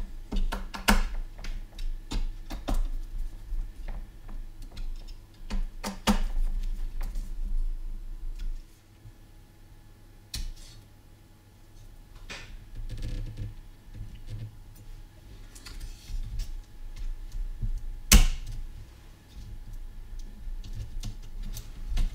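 Irregular clicks and light knocks of small plastic and metal parts being handled as a graphics card's cooler header cables are plugged in, with one sharper click about three-quarters of the way through.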